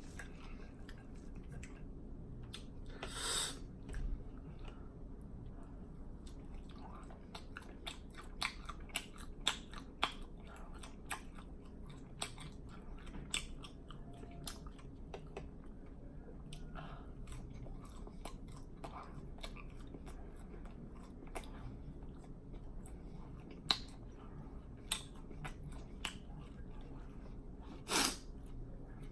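Close-up open-mouth chewing with frequent wet lip smacks, quick clicks scattered irregularly throughout. Two louder, noisier moments come about three seconds in and near the end.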